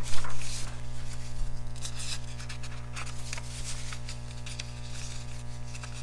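A sketchbook's paper page being turned and handled, with a sharp rustle about a quarter second in and softer scattered rustles after, over a steady low hum.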